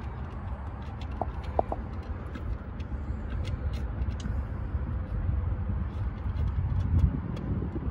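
Light clicks and taps of hands working at an open Chevy distributor, with a knock about seven seconds in, over a steady low outdoor rumble.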